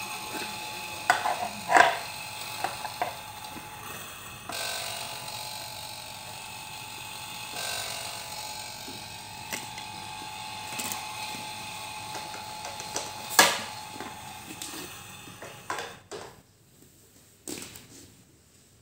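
Smoby toy kitchen's electronic sound effect playing through its small speaker, a steady buzzing tone that cuts off about sixteen seconds in. Plastic toy dishes knock and clatter as they are handled, loudest a couple of seconds in and again about two-thirds of the way through.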